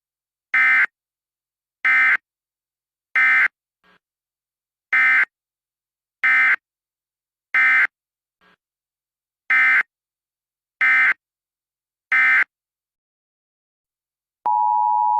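Nine short, harsh electronic buzzing bursts in an uneven rhythm, one every 1.3 to 1.9 seconds, of the kind of the data-burst tones of an Emergency Alert System message. Near the end a steady electronic tone begins.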